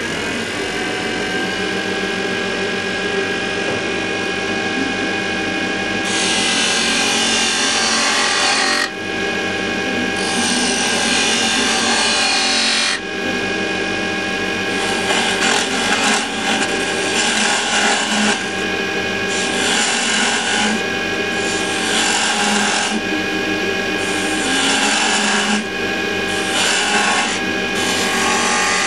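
Axminster wood lathe running with a steady motor whine while a narrow turning chisel cuts into a spinning wooden candlestick blank. The scraping of the cut starts about six seconds in and comes and goes in stretches of a few seconds.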